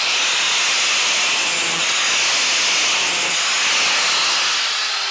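Angle grinder with a flap disc grinding a steel lawn mower blade held in a vise, a steady harsh grinding rasp, knocking the burr off the blade's edge after sharpening. Near the end the grinding eases off and the motor's pitch falls as it winds down.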